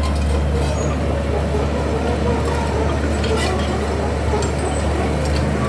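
Komatsu D31P bulldozer's diesel engine running steadily with a deep, even hum, with a few light clicks about three seconds in.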